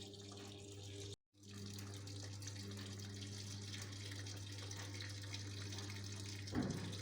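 Water running into the drum of a Samsung top-load washing machine as it fills for the second rinse, a steady rush of water over a steady low hum. The sound cuts out for a moment about a second in, then carries on unchanged.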